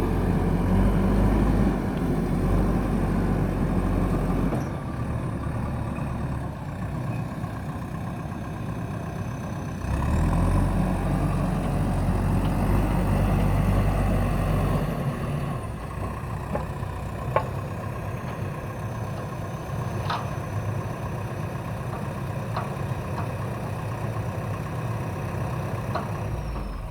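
Backhoe loader's diesel engine running, twice revving up louder for several seconds and then settling back, with a few sharp clicks near the end.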